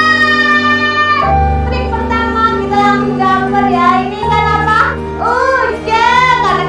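Background music: a high, sung vocal melody over steady bass notes.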